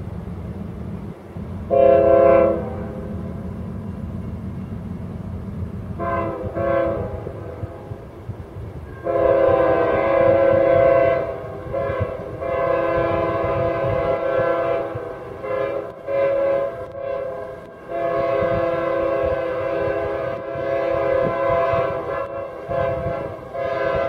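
CSX freight locomotive's multi-note air horn played as a horn show: a short blast about two seconds in, a double toot around six seconds, then long blasts broken by quick stabs and gaps from about nine seconds on. Underneath runs the low rumble of the approaching diesel train.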